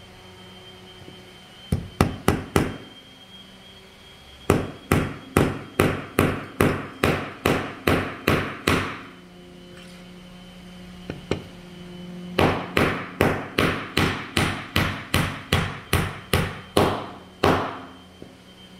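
Small 8-ounce claw hammer driving a nail into a pine board: four quick taps to set the nail, then two long runs of steady blows about three a second with a short pause between, each blow ringing briefly. The nail is being driven flush.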